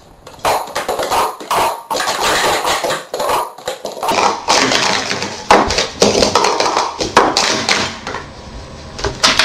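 Plastic sport-stacking cups clattering in fast, irregular clicks and knocks as they are stacked up and brought down in quick succession on the stacking mat during a speed-stacking cycle.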